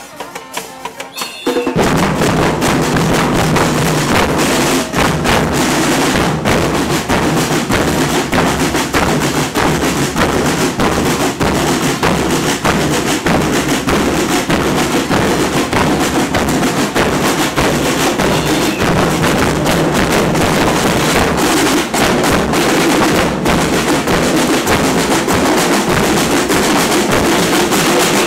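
Murga drum troupe playing loud, dense carnival percussion of drums and cymbals, which comes in suddenly about two seconds in and keeps a fast, steady beat.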